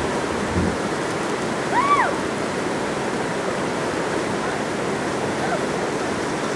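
Steady rushing of river rapids pouring over a rock ledge, with a brief rising-then-falling call about two seconds in.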